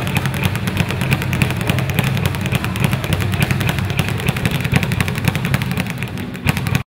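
Speed bags being punched, the leather bags rattling rapidly against their wooden rebound boards in a fast, continuous drumming of impacts. It cuts off suddenly just before the end.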